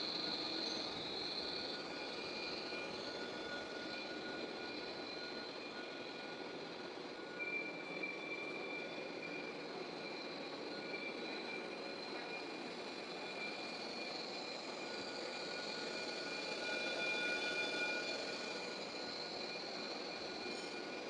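Metal lathe running steadily, a few thin high whining tones over its even mechanical hum.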